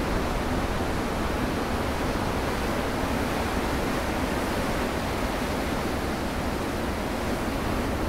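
Ocean surf breaking on a rocky shore: a steady, even rush of foaming water with no single wave crash standing out.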